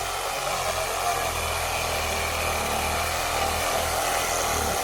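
Chainsaw running steadily, cutting up a fallen tree.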